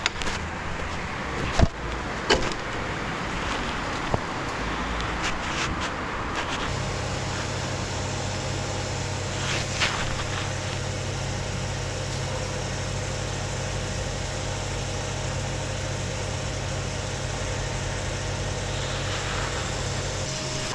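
Simson S51's 50 cc two-stroke single-cylinder engine idling steadily from about seven seconds in. Before that come a few sharp clicks and knocks of handling.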